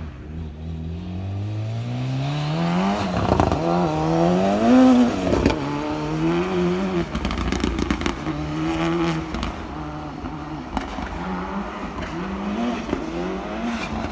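Car engine revving hard, its pitch climbing over the first few seconds, then rising and falling repeatedly as the car accelerates and lifts off between cones. Gravel crackles and scrapes under the tyres.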